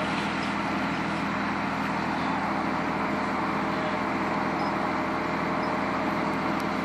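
A motor vehicle's engine idling steadily, its low hum unchanging, over a constant hiss.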